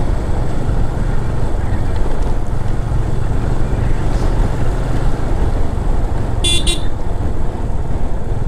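Motorcycle riding on a gravel road: a steady low rumble of wind and engine, with two quick horn toots about six and a half seconds in.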